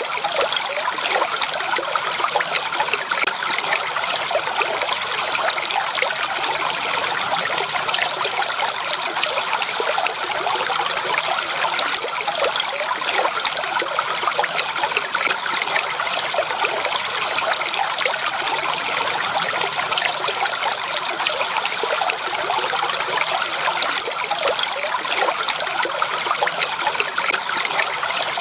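Water flowing and trickling steadily in a small stream, with a continuous babble of splashes and no break.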